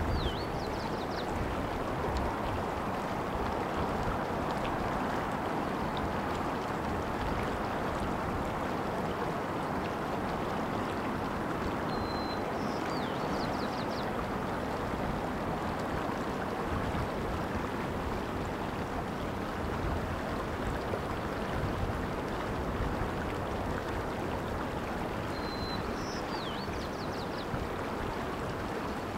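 Shallow water running steadily over rocks. A small bird calls three times, about every thirteen seconds: a brief high note, then a quick falling slur and a few short ticks.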